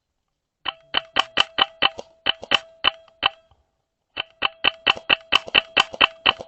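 Gate Pulsar D HPA airsoft rifle firing two quick strings of shots, each a sharp click at roughly four to six a second, with a pause of about a second between the strings and a steady tone under the shots.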